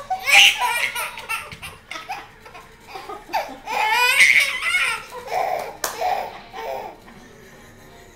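A baby laughing in bursts of high-pitched belly laughs, loudest about half a second in and again around four seconds in, trailing off near the end.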